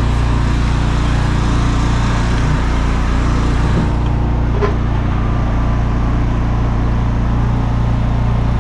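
Petrol engine of a pressure-washing machine running steadily with an even hum.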